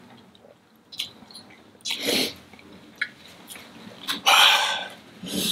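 Mouth sounds while eating very spicy instant noodles: a few small wet clicks, and two loud breathy rushes of air or slurping about two and four seconds in, the second the longest and loudest.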